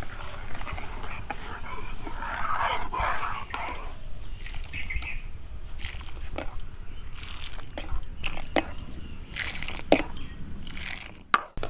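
Steel ladle stirring milk in a metal karahi, scraping the pan with several sharp clinks of ladle against metal, the loudest near the end, as the milk is boiled down.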